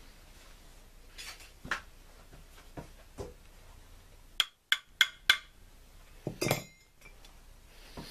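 Steel gear parts and washers clinking and knocking against the cast-iron case of a T-90 transmission as the cluster gear is dry-fitted by hand, without grease. A few light knocks come first, then four sharp ringing clinks in quick succession about halfway in, and a heavier clunk a second later.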